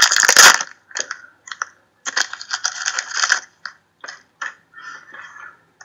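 Trading-card packs and cards being handled: a foil pack wrapper crinkling, then a run of small clicks and rustles from the cards, with a longer rustle about two seconds in.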